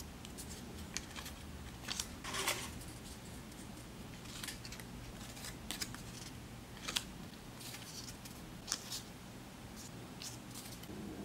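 Small paper slips being picked out of a cardboard box and laid down on a wooden floor: short, crisp paper rustles and light taps, coming every second or so, over a faint steady hum.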